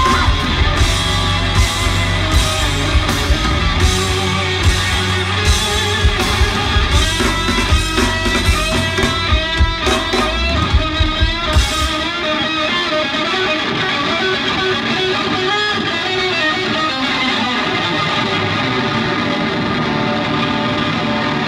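Live rock band playing: electric guitar over drums and bass, with regular cymbal hits. About halfway through the drums and bass drop out and the electric guitar plays on alone.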